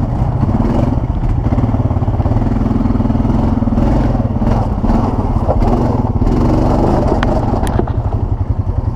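ATV engine running under throttle, its revs rising and falling, with a few sharp knocks about seven seconds in and a slower, lower chugging near the end.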